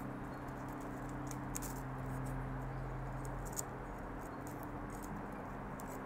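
Faint ticks and light rustling of metal bonsai tweezers plucking dry zelkova leaves, with a few sharper clicks about one and a half and three and a half seconds in, over a steady low hum.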